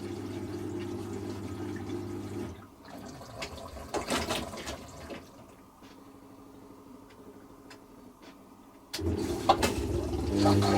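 Hoover Quattro Power Jet washing machine moving water with a steady electric hum, which stops about two and a half seconds in. Quieter splashing and a few clicks follow, then the hum and rushing water start again louder about two seconds before the end.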